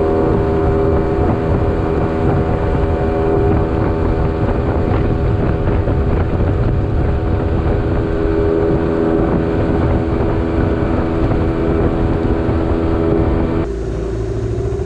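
A fishing boat's outboard motor running steadily at cruising speed, with wind buffeting the microphone. About a second before the end it is abruptly throttled back and the engine note drops.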